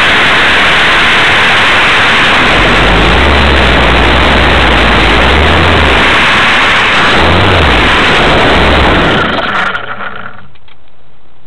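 Radio-controlled model Wilga plane heard from on board: a steady rush of wind and motor noise with low buffeting. It falls away about ten seconds in as the plane comes to rest in the grass.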